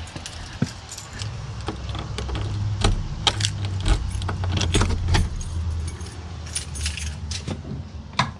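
Keys jangling on a ring with repeated metallic clicks as a key is fitted and turned in a brass doorknob lock. A low rumble runs under the middle of it.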